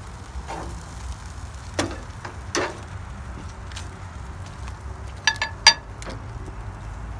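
Metal grill tongs clicking and tapping against the grill grate and dish as grilled chicken pieces are lifted off. There are a couple of soft knocks about two seconds in, then a quick run of three sharp, ringing metal clicks a little after five seconds, over a steady low rumble.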